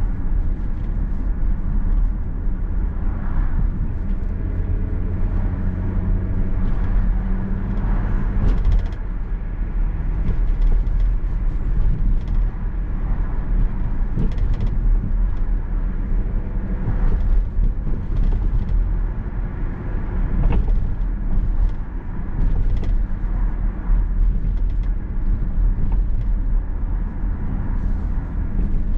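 Car driving along a street, heard from inside the cabin: a steady low rumble of engine and tyre noise.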